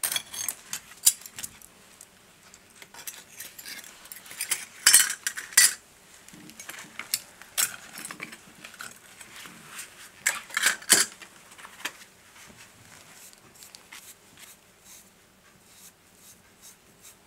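Pieces of rubble (broken brick, plaster and mortar fragments) clinking and clattering against each other as a gloved hand picks through and shifts them. The loudest clatters come about 5 and 11 seconds in, with only light ticks toward the end.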